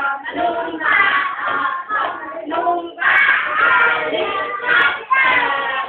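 A group of children and women singing together in short phrases about a second long, with brief breaks between them.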